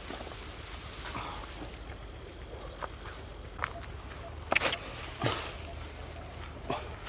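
An insect's steady high-pitched drone held on a single tone, with a few short rustles or knocks in the second half.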